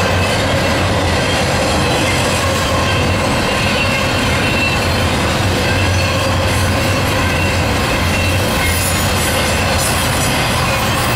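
Loaded double-stack container well cars of a Canadian Pacific freight train rolling past close by: a loud, steady rumble and rattle of wheels on rail, with a thin, steady wheel squeal over it.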